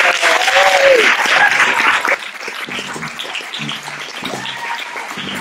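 Audience applauding, with a few voices calling out over it; the applause is loudest for about the first two seconds, then drops to lighter clapping.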